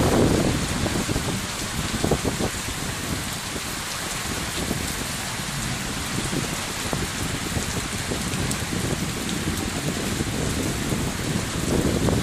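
Heavy rain falling steadily, a continuous hiss of drops. A low rumble swells at the start and again near the end.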